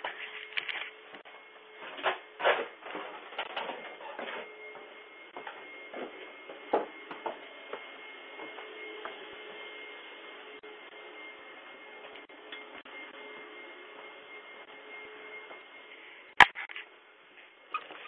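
Handling noise picked up by a Ring video doorbell's own microphone as it is fitted back onto its mount: scrapes and knocks for the first few seconds, then a faint steady hum, and one sharp click, the loudest sound, near the end.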